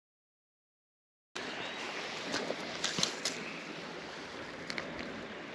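Dead silence for just over a second, then the steady rush of shallow creek water running over a riffle, with a few small clicks.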